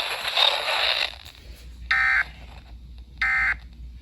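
About a second of static hiss, then two short, identical, buzzy digital data bursts a little over a second apart: the SAME end-of-message code that closes an emergency alert broadcast.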